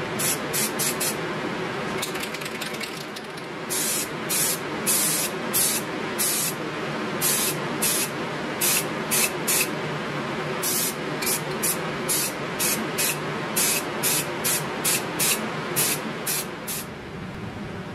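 Aerosol spray paint can hissing in many short bursts, several a second in clusters, as parts are sprayed grey, over a steady background drone.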